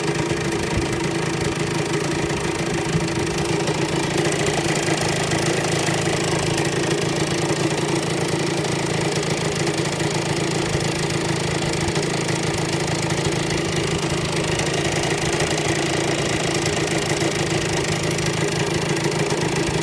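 Honda NSR50 two-stroke single-cylinder engine, bored to 62.9cc, idling steadily. It carries an abnormal noise that persists despite a crankshaft rebuild and all-new crankcase bearings; the owner's remaining suspect is the non-stock idle balancer.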